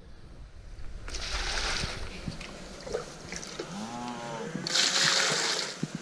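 Water poured from a plastic measuring pitcher into plastic buckets for mixing calf formula: a short pour about a second in, then a louder splashing pour near the end.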